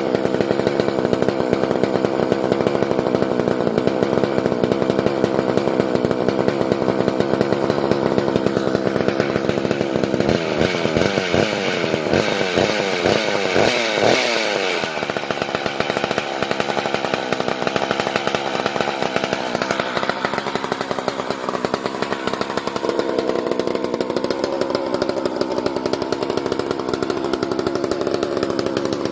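McCulloch CP125 two-stroke chainsaw, freshly rebuilt and running without its clutch, bar or chain. About ten seconds in it is revved up and down a few times, then it settles back to a steady idle: the carburettor's idle circuit has been cleaned out and it now holds idle on its own.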